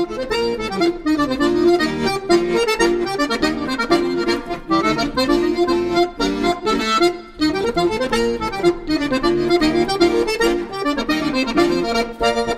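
Chromatic button accordion playing a fast, busy tune of quickly changing notes over a steady lower part, with a brief dip in sound about seven seconds in.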